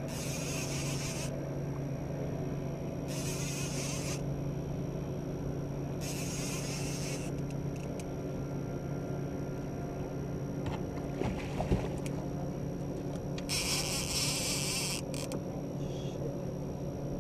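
Small outboard kicker motor running steadily at trolling speed. Over it come four short, high buzzing bursts about a second long, the first three about three seconds apart, and a few sharp clicks about two-thirds of the way through.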